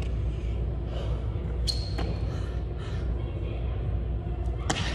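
Burpees on a gym floor: a few sharp knocks of hands and feet landing, the loudest near the end, over a steady low hum of gym room noise with faint voices in the background.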